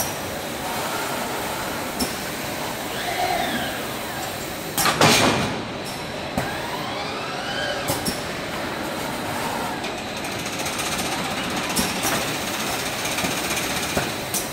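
Top-load case packer running, packing 2-litre PET bottles into cartons: steady machine noise with scattered sharp clicks and clacks, and whines that rise and fall as the gripper head moves. A loud burst of noise comes about five seconds in.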